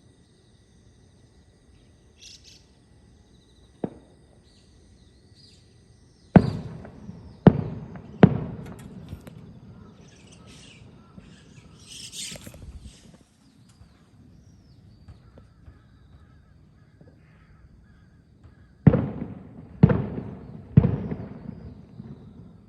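Loud sharp bangs, each with a long echoing tail: a single smaller crack, then three bangs about a second apart, and three more near the end. Between them birds give harsh calls.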